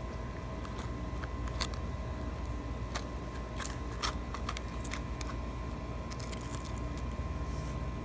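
Scattered sharp little clicks and crackles of a husky's teeth mouthing a cardboard soap box, over a steady low background hum.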